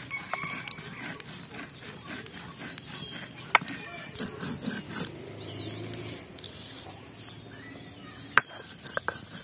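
Stone roller grinding dry fenugreek and fennel seeds on a flat stone slab (shil-nora), rubbing and scraping back and forth as the seeds crush to powder. Two sharp knocks of stone on stone stand out, one a little past a third of the way in and one near the end.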